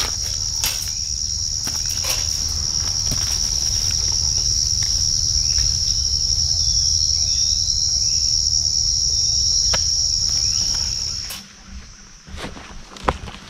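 Steady, high-pitched chorus of insects that cuts off abruptly about eleven seconds in, over a low rumble, with scattered clicks and knocks.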